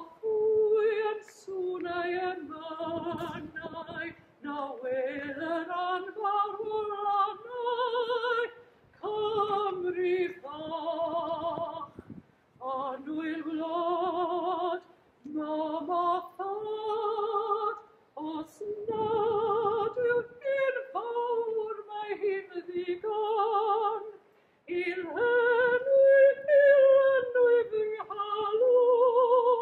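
A woman singing solo and unaccompanied, in phrases of held notes with vibrato, separated by short pauses for breath.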